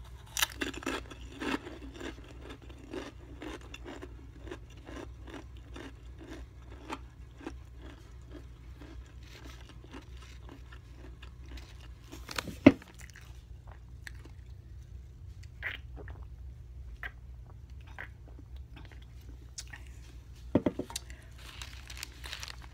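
A potato chip crunched and chewed close to the microphone: dense crisp crunching for the first several seconds, thinning to scattered crunches later. One loud sharp knock about halfway through, and a steady low hum underneath.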